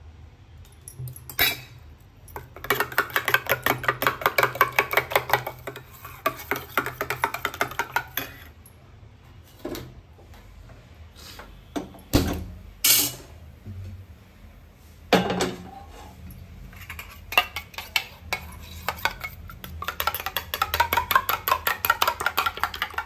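A metal spoon rapidly beating an egg in a stainless steel bowl, clinking against the bowl's sides in two long bouts. Between them come a few separate knocks and clicks while a gas stove burner is lit with a gas lighter.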